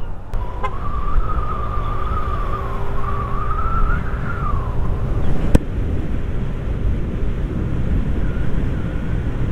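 Yamaha NMAX 155 scooter running at road speed, with wind rushing over the helmet microphone as a steady low rumble. A wavering whine rides above it for about four seconds, and there is one sharp click about five and a half seconds in.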